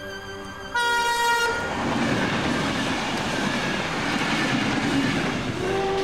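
A train: a short horn blast about a second in, then the steady noise of the train running, and a second long horn note starting near the end.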